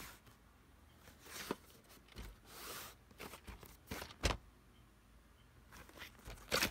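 Faint, irregular rustling and crinkling with scattered clicks and knocks.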